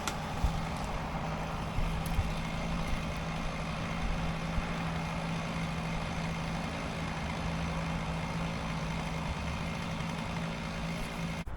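An engine idling steadily with an even hum, which cuts off abruptly near the end.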